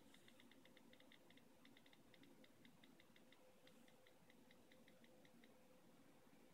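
Faint key-click sounds from an iPad Air 2's on-screen keyboard: a quick, uneven run of short ticks as keys are tapped, several a second, stopping about five and a half seconds in.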